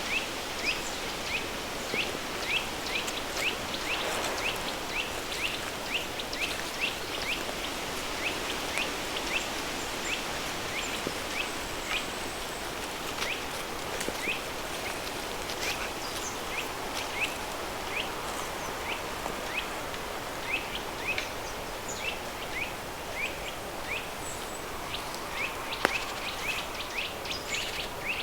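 Steady rushing of a river stream blended with pink noise, with a bird chirping short, quick notes over and over, about one or two a second.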